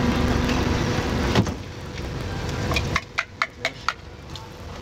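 Steady street background rumble that drops away about a second and a half in, followed by a quick run of five sharp clicks or taps.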